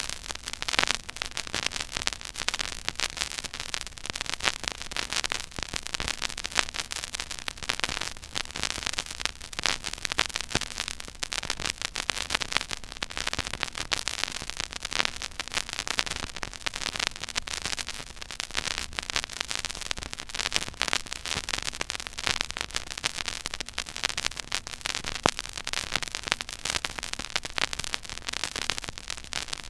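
Stylus tracking the silent groove of a 12-inch vinyl record at 33⅓ rpm: constant surface crackle and dense clicks over a hiss, with occasional louder pops and a faint low hum.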